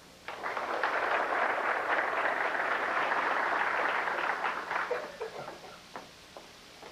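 Audience applauding: the clapping builds quickly, holds for about four seconds, then thins out to a few scattered claps.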